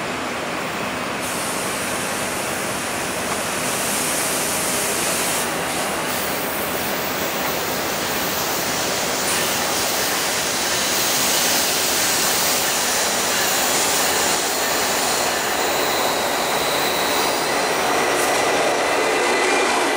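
Norfolk Southern intermodal freight train approaching behind its diesel locomotives: a steady rush of rail and engine noise that slowly grows louder as the train nears.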